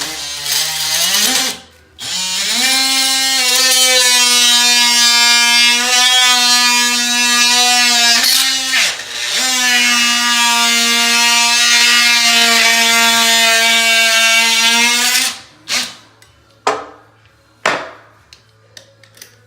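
Oscillating multi-tool cutting through an old PVC toilet flange. It spins up about a second in and runs at a steady pitch, drops briefly around the middle, runs again, then gives three short bursts near the end.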